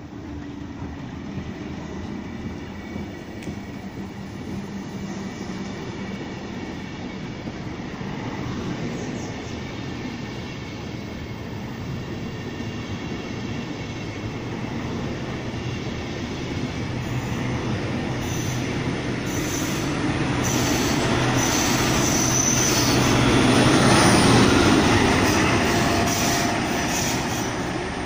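Push-pull Intercity train passing along the platform: the control car and a rake of coaches roll by with steady wheel-on-rail noise, and there are thin high wheel squeals in the second half. The sound builds to its loudest about 24 s in as the BR 218 diesel-hydraulic locomotive pushing at the rear goes past, then it starts to fade.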